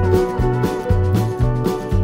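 Background music with a steady beat and a bass line stepping from note to note.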